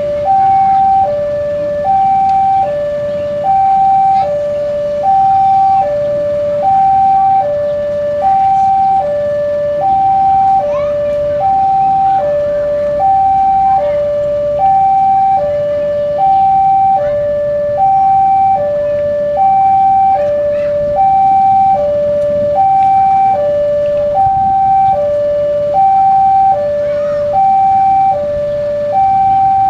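Railway level-crossing warning alarm sounding an electronic two-tone signal, a higher and a lower pitch alternating evenly about once a second each. This is the signal that a train is approaching the crossing.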